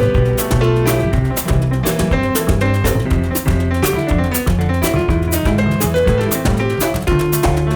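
Jazz piano trio playing live: piano, bass and drum kit in a Cape jazz goema rhythm, with busy drum strokes under the piano and bass lines.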